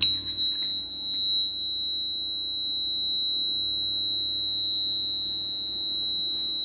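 Honeywell home alarm panel sounding its alarm as one steady, high-pitched tone, set off by opening the front left kitchen window zone while the system is armed home.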